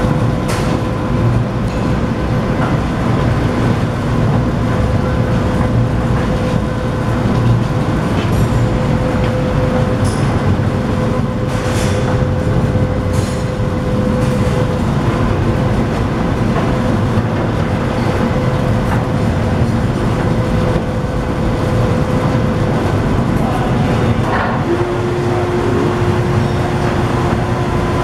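Bauer 322 peanut roaster running, its burner and blower giving a steady loud rumble with a steady hum over it. A little before the end a second, lower steady tone comes in.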